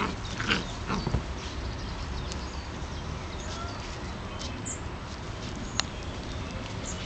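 Irish terrier puppies play-fighting, with a couple of short puppy noises in the first second, then only a steady background hiss and one sharp click near the end.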